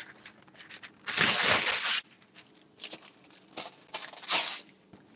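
Parchment paper rustling and crinkling as a sheet is pulled out and handled: one long rustle about a second in, then several shorter crinkles.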